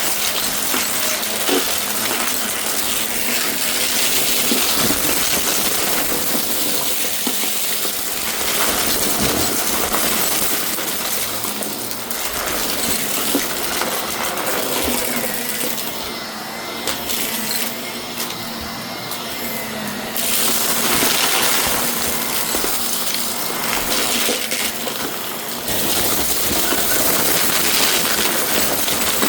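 Shark vacuum cleaner running, with a steady noisy drone; its sound thins for a few seconds just past the middle, then returns.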